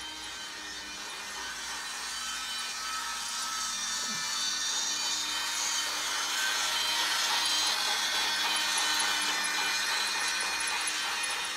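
Toy Christmas train running around its track, a steady whirring, grinding rattle of its motor and wheels that grows louder about halfway through as it passes close.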